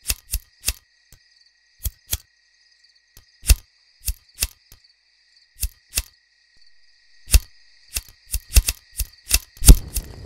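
Flint struck against steel again and again, about two dozen sharp, irregular clicks that come faster toward the end. With the loudest strike near the end the torch catches and fire starts to crackle.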